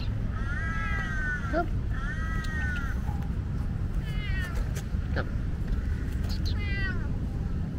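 Tabby tomcat meowing loudly, four drawn-out meows spaced about two seconds apart: the first two rise and fall in pitch, the last two slide downward. A steady low rumble runs underneath.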